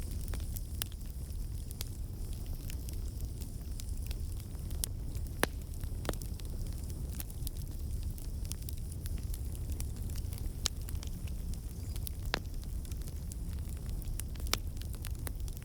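Campfire burning: a steady low rumble of flames with frequent sharp crackles and a few louder pops from the burning wood.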